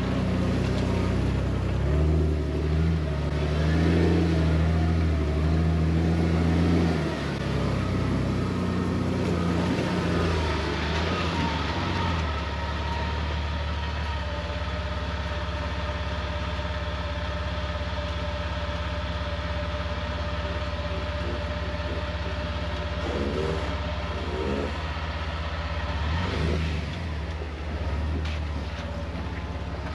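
Off-road vehicle engine working slowly over rough ground, its pitch rising and falling through the first dozen seconds, then running steadily, with a couple of brief revs near the end.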